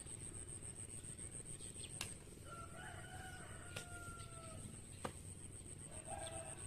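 A rooster crowing in one long drawn-out call that falls slightly at its end, with a second crow starting near the end. Three sharp strikes of a hand hoe chopping into dry soil come between.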